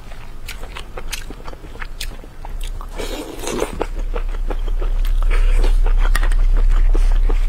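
Close-miked chewing with wet mouth clicks as someone eats cold-pot skewers of meat from chili oil. A short rushing noise comes about three seconds in, and a low steady rumble builds from about four seconds on and becomes the loudest sound.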